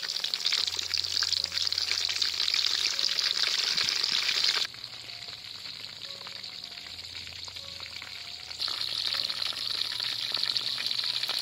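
Jackfruit wedges deep-frying in hot oil in a metal wok, with a dense, steady sizzle and crackle. About halfway through it drops to a much quieter level for about four seconds, then comes back at full strength.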